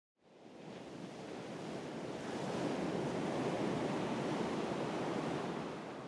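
Ocean surf washing ashore: a steady rushing wash that fades in from silence at the start, swells to its loudest in the middle and eases off a little near the end.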